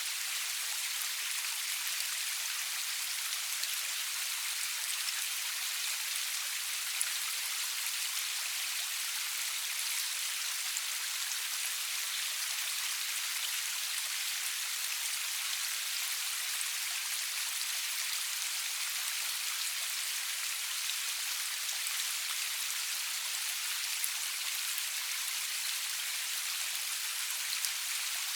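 Steady rain falling, an even hiss made of many small drops, with a few faint individual drop ticks; no thunder.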